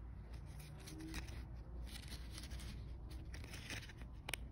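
Faint rustling and scraping of paper and plastic packaging being handled, with a sharp click near the end.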